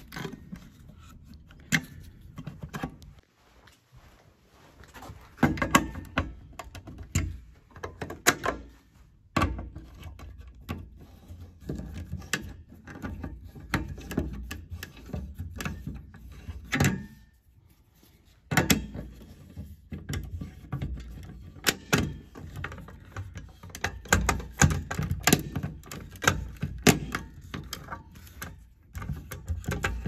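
Irregular clicks, knocks and rattles of a folding hex-key set working the reset lock of a Siemens manual fire alarm pull station, the station's plastic handle and cover clacking as it resists being reset.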